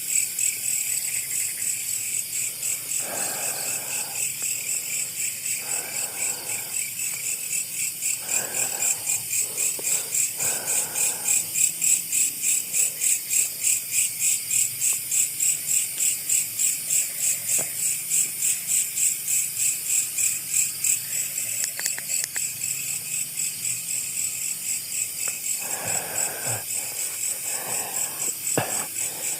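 Night insects chirping in a dense chorus that pulses about four times a second, with a few brief soft rustles.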